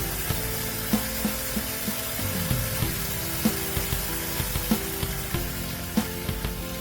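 Background music with a steady beat over a steady hiss, which drops away at the very end.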